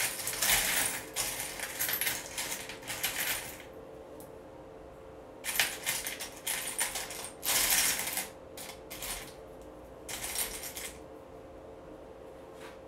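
A hand rummaging through a bowl of seashells and small stones, the shells and pebbles clattering and clinking against each other. There is a long stretch of clattering at the start, then four short bursts as pieces are picked out.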